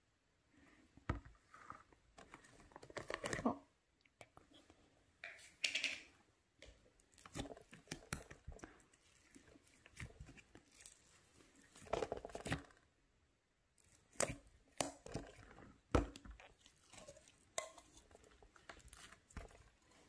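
Clear slime handled in a plastic tub and pulled out of it: irregular sticky squelches, crackles and small pops, mixed with plastic clicks and knocks as the tub and lid are handled.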